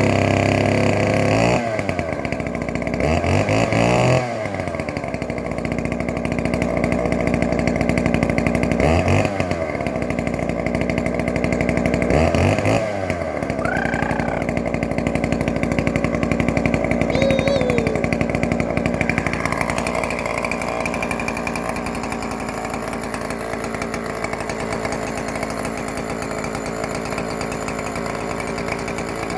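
Yuzhoukee YZ105 105cc chainsaw on an Alaskan chainsaw mill, running hard and loud while ripping a log. Its engine speed dips and climbs back up three or four times in the first half, then holds steady.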